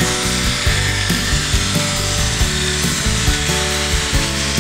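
Electric jigsaw cutting through a plywood sheet, a steady buzzing saw noise, with background music playing over it.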